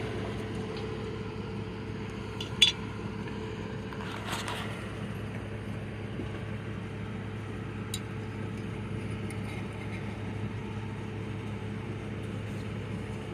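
A tight canning-jar lid being worked loose, with one sharp click about two and a half seconds in and a softer click a couple of seconds later, over a steady low mechanical hum.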